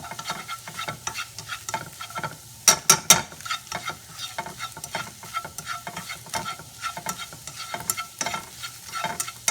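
Chicken pieces sizzling in a non-stick pan as they are stirred and turned with chopsticks, with frequent sharp clicks of the chopsticks against the pan, the loudest a few about three seconds in. The chicken is being cooked through.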